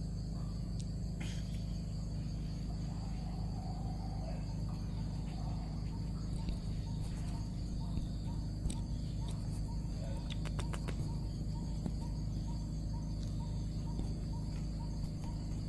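Steady high-pitched chorus of insects such as crickets or cicadas. From about halfway through, a faint short note repeats about twice a second.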